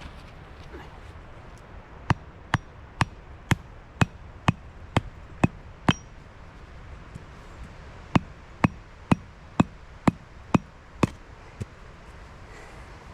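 Homemade wooden tent pegs being hammered into the ground: two runs of sharp, regular blows, about two a second, nine and then seven after a short pause, with one lighter blow at the end.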